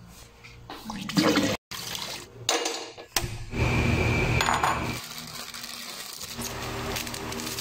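Kitchen handling sounds in short cuts: metal clinks of a stainless steel wok and bowls, with water sloshing and pouring.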